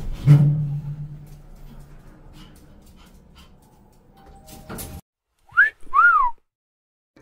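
A knock about a third of a second in, with a low hum that fades over a couple of seconds. After a sudden cut, a whistle sound effect plays two quick glides, the first rising and the second rising then falling.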